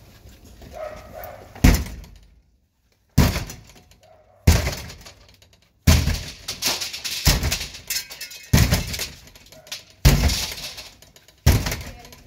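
A handheld police battering ram (door enforcer) slamming into a front door to force entry: about eight heavy blows, roughly one every second and a half, each a sharp crack with a short ring after it.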